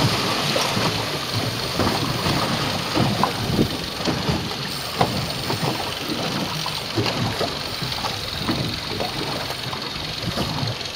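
Water slapping and sloshing against a boat's hull in irregular surges over the boat's engine running, while a sailfish is fought from the deck.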